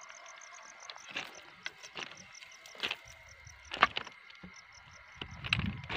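Footsteps crunching on the gravel ballast of a railway track, about one step a second. Underneath, an insect chirps in a quick, even high pulse that fades about a second in, and a brief low rumble comes near the end.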